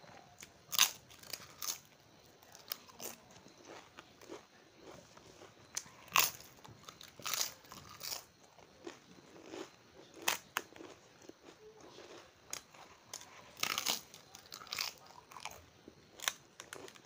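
Close-mic crunching and chewing of crisp fried papad, sharp irregular cracks as it is bitten and chewed, loudest about a second in, around six seconds in and near fourteen seconds.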